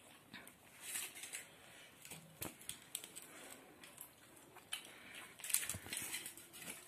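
Hand mixing pakhala, rice soaked in water, in a steel bowl: wet squishing with scattered sharp clicks.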